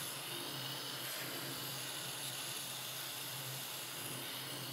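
Compressed air hissing steadily through an inflator chuck on the tire valve, with a faint low hum under it. The air is going into a stiff-sidewall tire to seat its bead on the rim.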